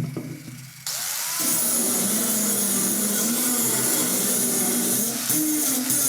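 Handheld electric power tool switched on in two short bursts, then running steadily under load on metal, its pitch wavering slightly.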